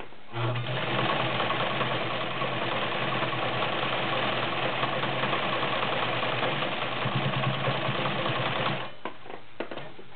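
Vintage Morse zigzag sewing machine running at a steady speed on a zigzag stitch, its motor humming under the chatter of the needle mechanism. Near the end its sound changes as it stitches over a doubled layer of fabric. It stops about nine seconds in, followed by a few light clicks.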